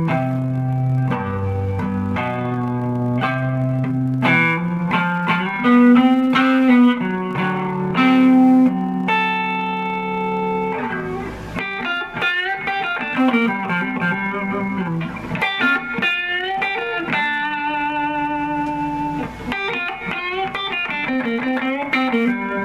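Epiphone Les Paul Special electric guitar with two humbucking pickups, played through an amplifier: held notes and chords at first, then phrases of single notes with bent strings.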